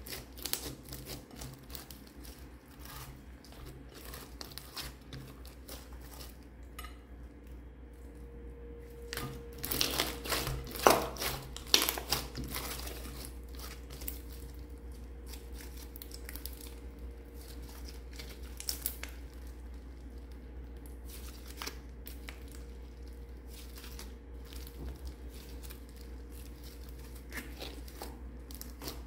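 Glossy slime mixed with small beads squished, folded and stretched by hand, giving wet crackling and popping clicks as air pockets burst; the crackles are densest and loudest about ten seconds in. A steady low hum runs underneath.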